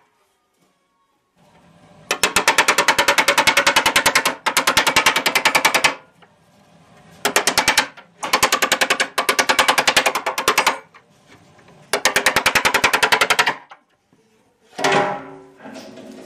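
Rapid, evenly spaced hammering on the thin aluminium sheet of the seat, in five bursts of one to two seconds each, separated by short pauses.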